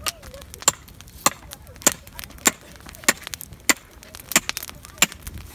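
Sharp wooden knocks struck at an even pace, eight in a row about every 0.6 seconds.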